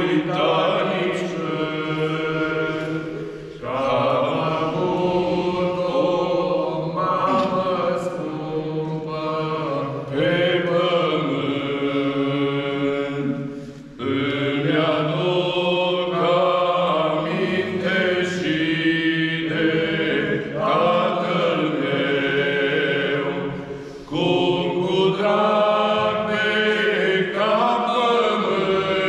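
Orthodox priests singing a religious song together from a sheet, in long phrases broken by short pauses.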